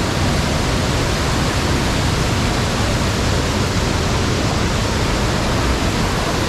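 Steady rushing of falling water, a stream or waterfall in a forest gorge, a loud even wash of noise with no breaks.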